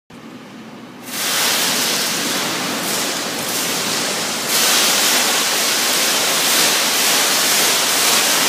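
A wheel and undercarriage wash's water jets switch on about a second in and spray with a loud, steady hiss. The hiss grows louder again about halfway through.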